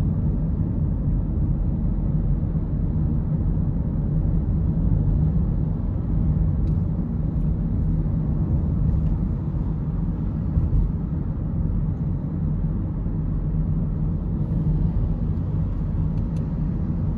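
Steady low rumble of road and engine noise inside a car cabin while driving at highway speed.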